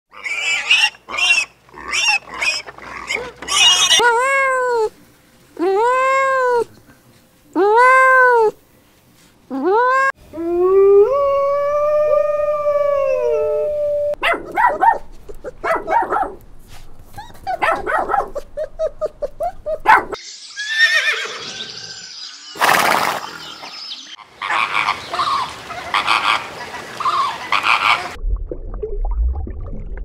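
A string of different animal calls cut one after another. It opens with quick squeals and grunts from pigs, then four drawn-out calls that each rise and fall in pitch, and one long held call. After that come a small dog's quick barks and a stretch of rougher, noisier calls, ending in low rumbling noise.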